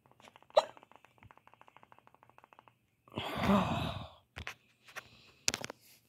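Ceiling fan running on low speed with a fast, even ticking, broken about three seconds in by a loud, breath-like noise from a person lasting about a second. A few sharp clicks follow.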